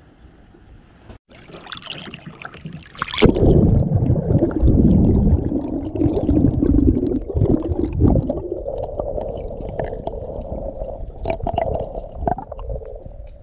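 Seawater splashing over a camera as it is plunged into the sea about three seconds in, then muffled underwater gurgling and rumbling of water around the submerged camera. The rumbling is loudest just after it goes under and slowly eases off.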